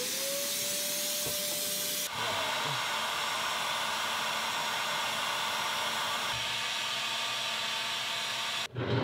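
Handheld electric heat gun running: its motor whine rises in pitch as it starts, then it blows steadily. The sound of the airflow shifts about two seconds in and then holds steady.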